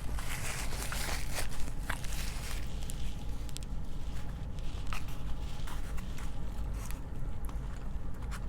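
Close-miked eating sounds: a person chewing and biting food, with crackly crunching in the first couple of seconds and then scattered wet clicks of chewing.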